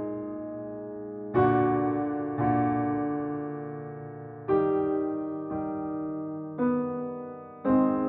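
Slow, soft piano music: chords struck roughly once a second, each left to ring and fade before the next.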